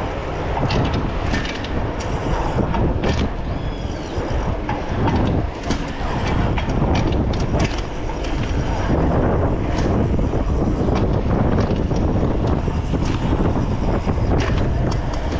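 Bicycle ridden along a city street: steady wind rush on the microphone and rolling noise, with scattered clicks and rattles from the bike, and motor traffic around.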